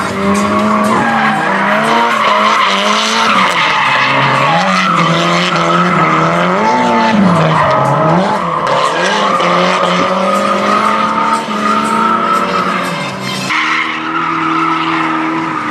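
Drift car sliding through a drift: its engine revs high, the pitch dipping and climbing again as the throttle is worked, over the hiss of tyres skidding and squealing on asphalt.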